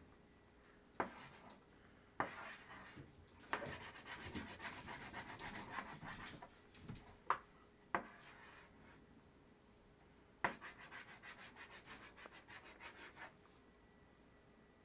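Chalk tapping and scraping on a chalkboard in quick scribbling strokes. The strokes come in a few runs, each starting with a sharp tap of the chalk against the board.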